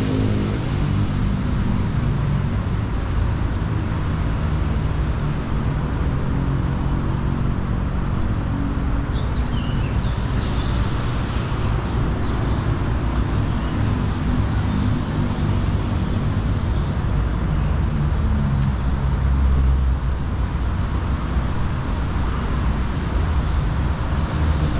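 Road traffic going past: a steady low rumble of motor vehicle engines, with engine hum swelling near the start and again near the end.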